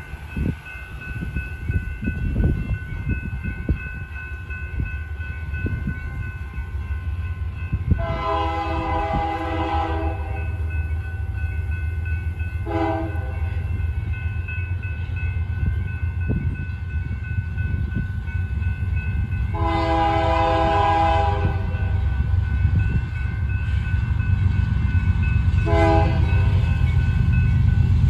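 Diesel locomotive air horn sounding four blasts while the locomotive is still out of sight: long blasts about eight and twenty seconds in, short ones around thirteen and twenty-six seconds. Under the horn, a low rumble from the locomotive working under power grows steadily louder as the train approaches.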